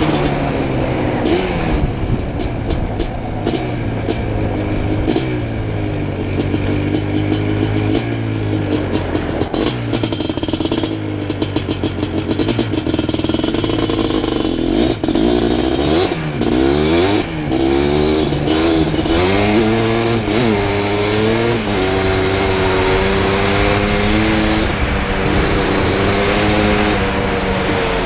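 1987 Suzuki LT500R Quadzilla's 500cc two-stroke single on an FMF Fatty pipe, under way at speed. The revs hold and step in the first part, rise and fall several times in the middle as the quad slows and picks up again, then pull steadily high near the end.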